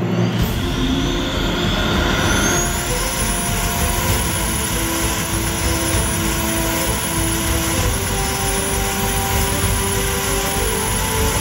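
PBS TP 100 turboprop engines running on the ground: a high turbine whine over the drone of the propellers. The whine rises over the first couple of seconds, then holds steady, edging up slightly about eight seconds in.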